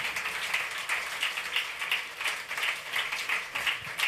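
Hand clapping in a steady rhythm, about three claps a second.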